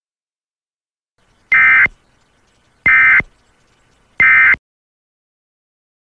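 Three short bursts of Emergency Alert System SAME data tones, a harsh two-pitch digital buzz, each about a third of a second long and about a second apart: the end-of-message code that closes the alert.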